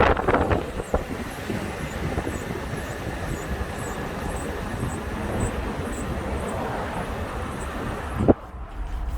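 2016 Toyota 4Runner on the move: steady road and tyre noise, with a faint high squeal from about two to four seconds in that fits the brake squeak being recorded. Near the end there is a brief sharp rising sound, then the noise drops away.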